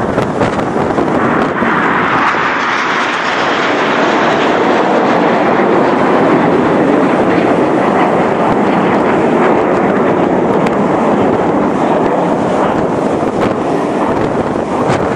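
Red Arrows' BAE Hawk jets flying past in formation: a loud, steady jet roar that swells a couple of seconds in and then holds.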